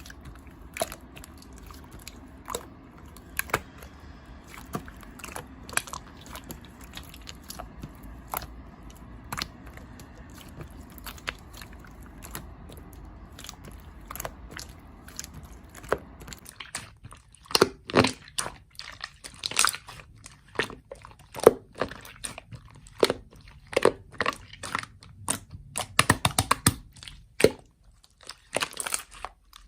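Slime being squeezed and pressed by hand, making sticky clicks and pops. About seventeen seconds in, the sound changes to louder, denser crackling and popping.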